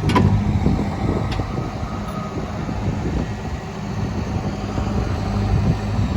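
Case 580 Super N backhoe loader's diesel engine running steadily under load while the backhoe digs, with a sharp knock right at the start.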